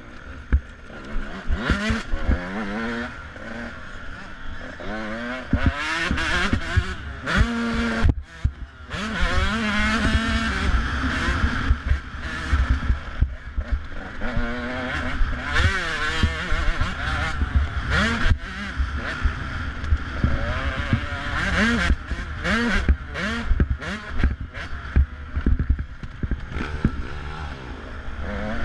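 Dirt bike engine heard from on board, repeatedly revving up and dropping back as the rider accelerates and shifts over the track, with wind noise and knocks from the rough ground.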